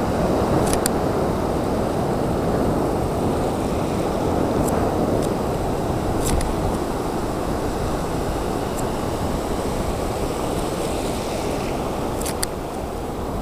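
Small Gulf of Mexico waves breaking and washing up the sand in a steady rush, with a few faint high ticks scattered through.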